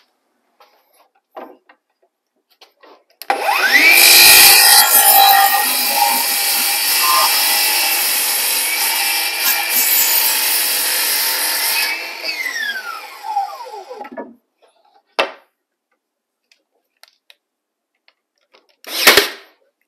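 Cordless circular saw spinning up with a rising whine about three seconds in, cutting through a wooden board for roughly eight seconds, then winding down with a falling whine. A click follows, and near the end a short loud burst.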